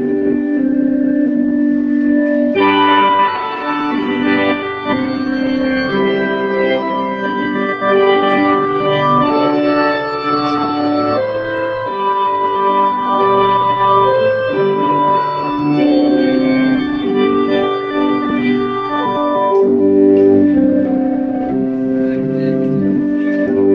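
Organ-style keyboard music: sustained chords that shift every second or two, growing fuller and brighter about three seconds in.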